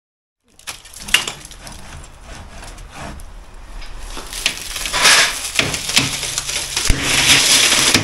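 Cavity blockwork and plaster being broken out of a wall by hand, with rubble crumbling and falling and scattered sharp cracks and knocks. It starts about half a second in and gets louder toward the end.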